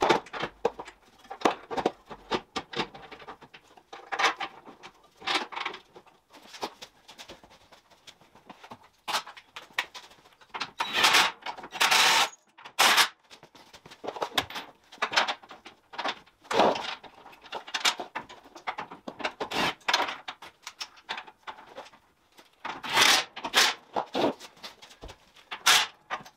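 Irregular metallic clinks, clatters and knocks of hand tools and bolts being worked under a car while the subframe bolts are fitted, with louder bursts of clatter about halfway through and again near the end.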